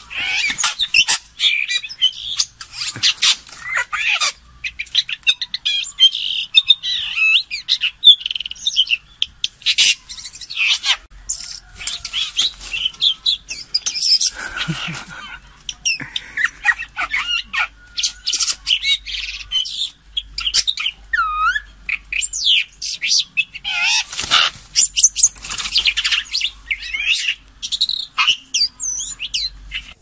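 Red-billed blue magpie calling in rapid runs of sharp chirps and squawks, mixed with short whistled glides. The bursts are broken by brief pauses.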